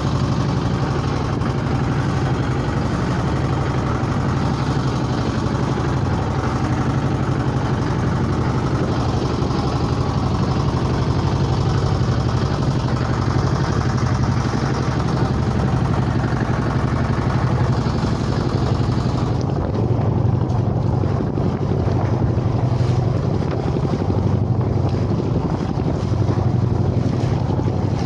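Small wooden fishing boat's motor running steadily underway at sea, with wind and water noise over it.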